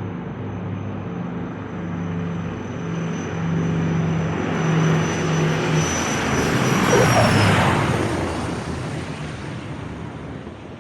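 Airplane flying past overhead: the engine sound grows louder to a peak about seven seconds in, where a high whine drops in pitch as the plane passes, then fades away.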